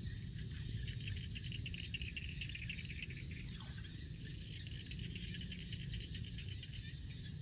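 Insects trilling steadily with a constant high pulsing buzz, over a low rumble and faint crackling.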